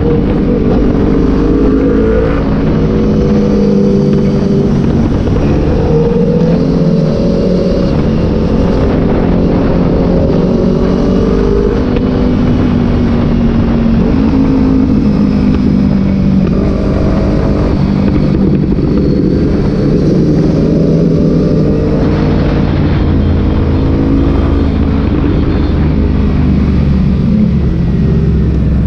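Motorcycle engines running on the move, their pitch rising and falling as the throttle opens and closes.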